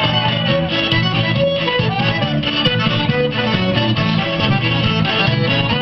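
Lively quadrilha dance music playing steadily, with a melody over a regular bass line.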